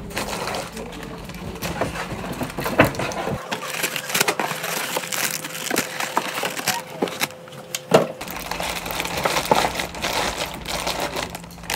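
Crinkling and rustling of plastic-wrapped snack packs being handled and set down on a desk, with scattered sharp taps and knocks. Near the end a paper shopping bag rustles.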